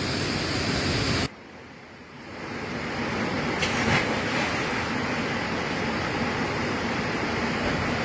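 Steady rush of a waterfall cascading into a rock-walled canyon pool. It drops away suddenly about a second in, then swells back up to a steady rush.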